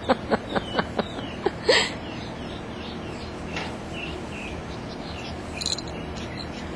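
Pug puppies yipping in play: a quick run of about eight short yips in the first two seconds, then faint bird chirps in the background.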